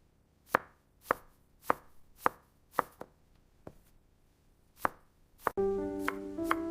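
A kitchen knife chopping food on a wooden cutting board: about eight separate crisp chops, roughly two a second, with a short pause in the middle. Gentle piano music comes in near the end.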